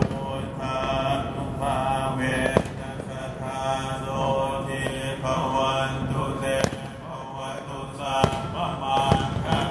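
Buddhist group chanting in a steady, droning recitation, with several sharp firework bangs popping over it.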